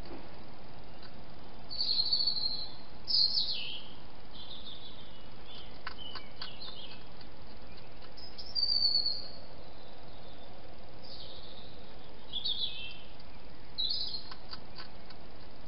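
Birds calling: a series of short, high chirps and downward-sweeping calls every second or two, over the steady hiss of a night-vision camera's microphone. A few faint clicks come around the middle and again near the end.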